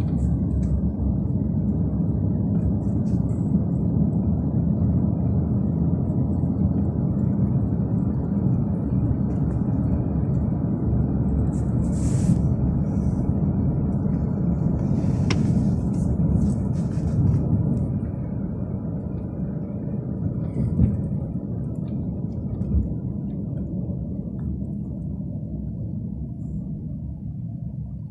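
Steady low rumble of road and engine noise inside a moving car's cabin, easing off and getting quieter from about two-thirds of the way through. A few brief hisses rise above it around the middle.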